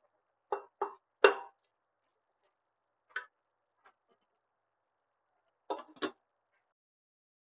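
A wooden utensil knocks three times in quick succession against a stainless steel pot of cooked rice, then taps it lightly twice more. Just before six seconds in, a glass lid clinks twice as it is set on the pot.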